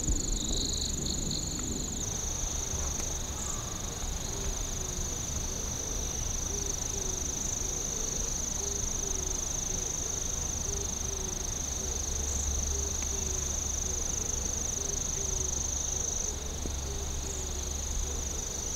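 Insects droning: a steady, high-pitched buzz, with a faint low note repeating about once a second.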